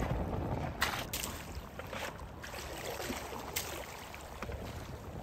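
Fast-flowing river water washing steadily around a moving canoe, with a few brief sharp clicks about one second and three and a half seconds in.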